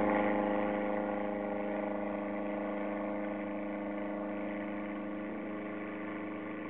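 Affordaplane ultralight's engine droning steadily overhead in flight, holding one pitch and slowly fading.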